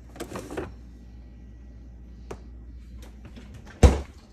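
Kitchen handling noises while food is being prepared: a brief rustle-like clatter at the start, a small click, and a sharp loud knock near the end, as of an object set down or a cupboard shutting. A faint low hum runs underneath.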